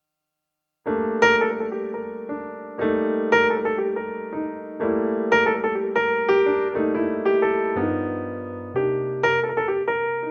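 Background piano music, starting about a second in after silence, with struck chords and notes every second or so.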